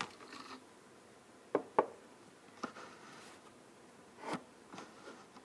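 Several short taps and knocks of handling on a kitchen counter, the loudest about four seconds in, as the camera and test glasses are set in place.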